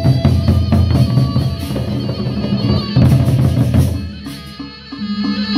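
Gendang beleq ensemble playing: the big double-headed Sasak drums beat fast and dense. About four seconds in the drumming drops away, and near the end repeated steady pitched notes take over.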